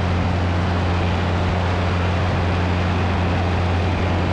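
Cessna 177RG Cardinal's Lycoming IO-360 engine and propeller at climb power after takeoff: a steady low drone under heavy wind rush, heard from outside under the wing.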